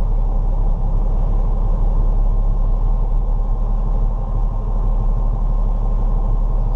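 A vehicle engine running steadily at a low, even speed.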